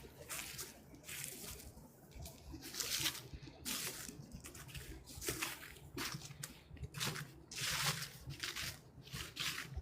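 Footsteps crunching through dry fallen leaves on a trail, a crisp rustle about every half second to a second at an uneven walking pace.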